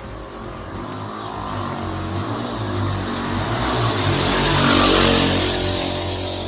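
A motor vehicle passing close by: engine and road noise swell to a peak about five seconds in, then fade away.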